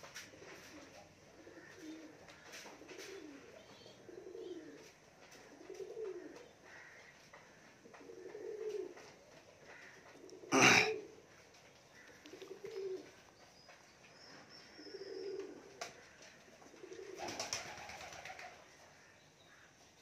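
Domestic pigeons cooing: a low coo that rises and falls, repeating every second or two. One loud sharp knock about halfway through.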